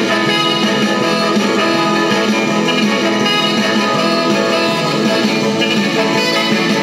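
Instrumental rock and roll record played from a 45 rpm vinyl single: a full band playing steadily and loudly, with guitar prominent.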